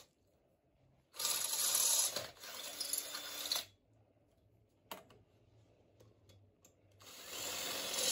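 Electric drill boring screw holes in the Razor SX500's metal frame tube, running in short bursts with pauses between: a run about a second in, a weaker stretch to around four seconds, a single click near five seconds, and the drilling noise starting again near the end.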